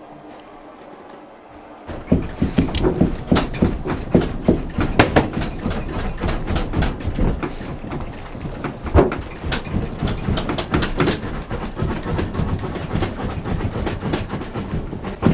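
Handling noise from a handheld camera being moved around: after a low steady hum, a loud, dense run of irregular knocks, clicks and rustles starts about two seconds in and keeps going.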